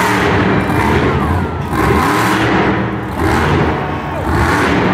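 Monster truck engine revving hard in repeated surges as the truck holds a wheelie on its rear wheels.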